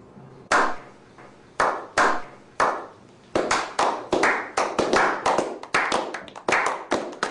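A slow clap by a small group of men. Single hand claps come about a second apart at first; from about three seconds in, several more people join and the clapping quickens into a denser, faster round of applause.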